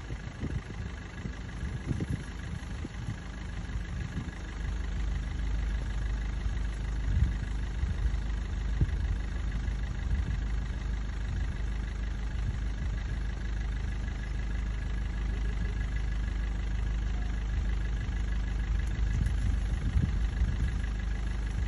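A vehicle engine idling steadily, its low hum growing fuller about four seconds in.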